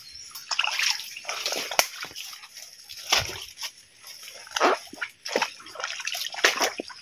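Feet wading through a shallow, rocky stream: irregular sloshes and splashes in the water, with one heavier splash about three seconds in.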